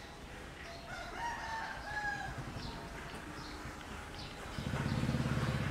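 A drawn-out bird call of rising and falling tones about a second in, with small chirps around it. Near the end a louder low, steady pulsing hum comes in.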